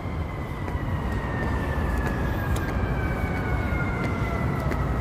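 Steady rumble of downtown city traffic, with a thin high whine that slides slowly down in pitch throughout.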